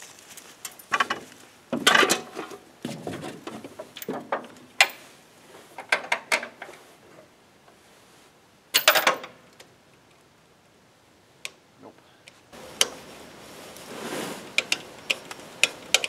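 Scattered metallic clicks and knocks on an old tractor as someone climbs on and tries the key after a new ignition solenoid was fitted; the engine does not crank, so the starting circuit is still not working. A rustling handling noise near the end.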